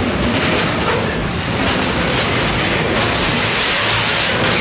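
A train rolling past on the rails: a steady rush of wheel and rail noise.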